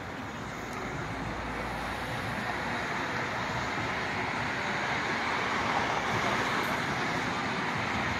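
Steady rushing noise of distant road traffic, growing slowly louder.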